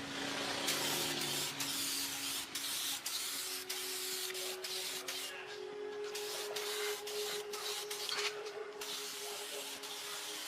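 A steady, hissing spray, broken by many short pauses, over faint sustained tones.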